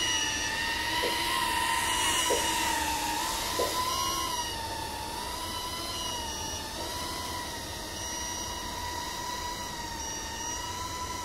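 Small 3-inch FPV quadcopter's brushless motors (DYS 1306 4000KV) and three-blade props whining, the pitch wavering up and down as the throttle changes in flight.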